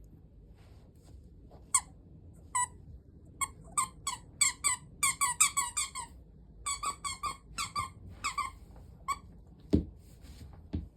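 A three-month-old border collie puppy grinding her teeth: runs of short, high squeaks, several a second, with a brief gap in the middle. A single thump near the end is the loudest sound.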